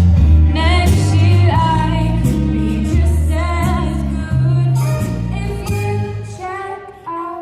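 A Christmas song: singing over a steady bass line and instruments, fading out near the end.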